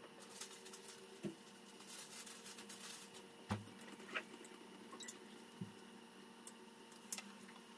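Quiet room tone with a faint steady hum, broken by about half a dozen soft, short clicks and taps scattered through it.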